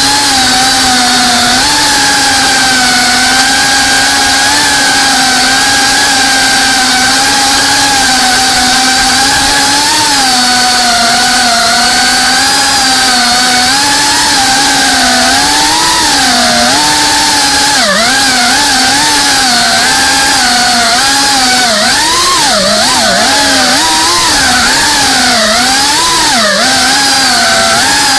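Brushless motors and ducted propellers of a GEPRC Cinelog35 FPV cinewhoop drone, heard through the onboard camera: a loud buzzing whine whose pitch follows the throttle. It holds fairly steady at first, then rises and falls quickly and often through the last third as the drone manoeuvres.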